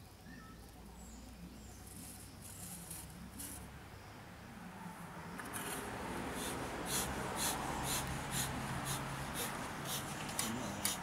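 Bee smoker's bellows being squeezed about twice a second from about halfway through, each squeeze a short puff of air pushing through the freshly lit, smouldering grass fuel to get it smoking. Before that, faint rustling of dry grass.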